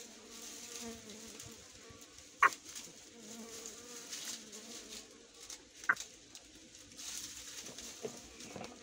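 A bird cooing faintly and stingless bees buzzing around an opened hive, with two sharp clicks about two and a half and six seconds in.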